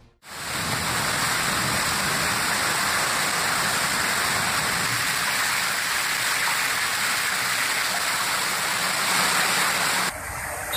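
Heavy rain pouring down as a steady, even hiss. About ten seconds in it cuts abruptly to a slightly different rushing noise.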